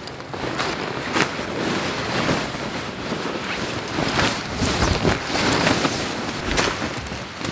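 Synthetic camping fabric rustling and swishing as it is pulled out of its stuff sack and shaken loose, in irregular swells with a few sharp crinkles.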